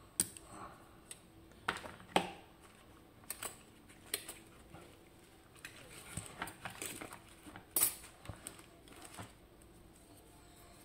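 Small metal clicks and clinks of a FAB 3-star pin tumbler lock being taken apart by hand: tools and small lock parts tapping and knocking in an irregular run, the sharpest taps near the start and around two and eight seconds in.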